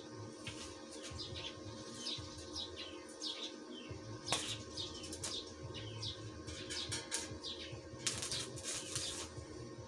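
Small birds chirping over and over, each call a short falling note, over a steady low hum. A sharp click comes about four seconds in, and a burst of crackling hiss about a second long comes near the end.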